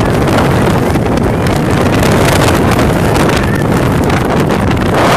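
Storm wind buffeting the phone's microphone: a loud, continuous rushing noise with uneven gusts.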